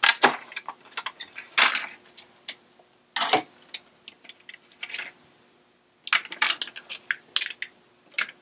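Stiff clear plastic clamshell package crackling and clicking in the hands as it is opened and the small sight-mount parts are taken out: irregular sharp clicks and short crinkles.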